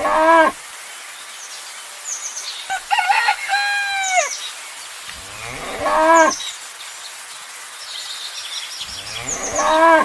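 Cattle mooing: several separate calls, each falling in pitch, with small birds chirping in between.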